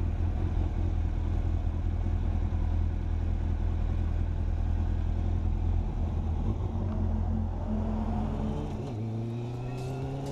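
A motor vehicle engine idling with a steady low rumble, then speeding up near the end, its pitch rising.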